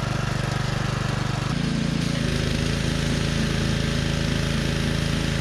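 Small gasoline engine of a Simpson PowerShot 3600 PSI pressure washer running steadily while the wand sprays water. Its carburetor main jet has just been cleaned to cure a surge at full throttle.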